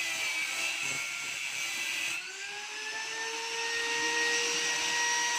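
Fish meal processing machinery running with a steady whine over a hiss. About two seconds in, the hiss drops and the whine rises slightly in pitch, then holds steady.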